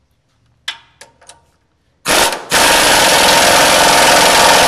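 A few light metal clicks as the socket goes onto the nut. Then a pneumatic impact wrench hammers the new pitman arm nut tight on the steering box shaft: a short burst about two seconds in, and after a brief pause a steady loud run of about three seconds.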